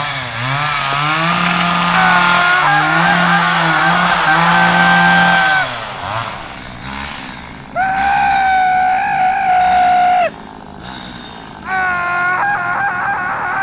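A chainsaw running at high revs as it cuts into a tree trunk. Later, long, high wailing tones like screams come in twice, the second starting near the end.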